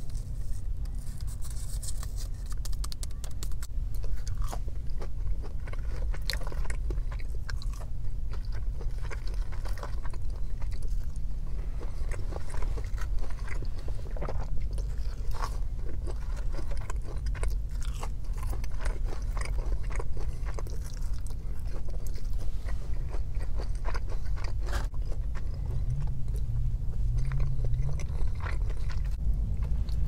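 Close-miked chewing and biting of food, with the crunch of fried okra and many small wet mouth clicks, over a steady low hum.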